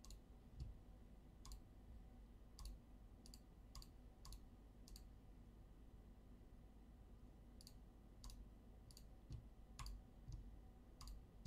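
Faint, irregular clicking over near silence: about a dozen single sharp clicks, spaced unevenly, a second or so apart in places and with a gap of a few seconds in the middle.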